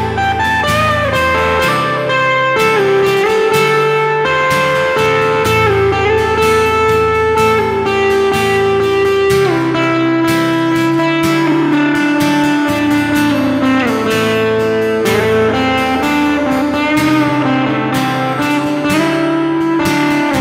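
Instrumental break of a country-blues band song: a guitar-led lead melody of held, bending notes over a changing bass line and a steady beat.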